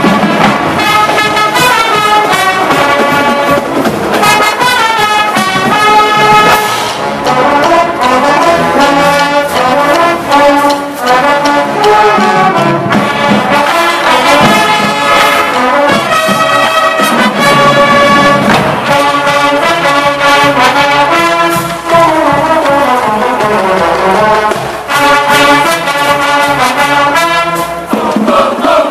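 A large high school marching band playing a brass-led piece, with massed horns carrying the tune over a steady drum beat.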